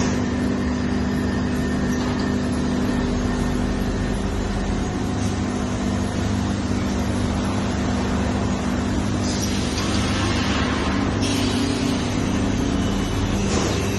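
Industrial laminating machine running with a steady hum. A hiss starts about two-thirds of the way in, lasts about two seconds and cuts off suddenly; a shorter hiss comes near the end.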